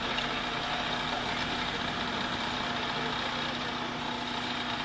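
Petrol engine of a hydraulic rescue-tool power unit running steadily at constant speed, with an even mechanical hum.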